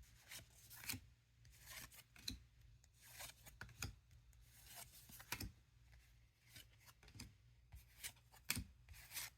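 Faint, irregular soft rustles and flicks of Lord of the Rings TCG cards being handled, slid one behind another as a freshly opened booster pack is looked through.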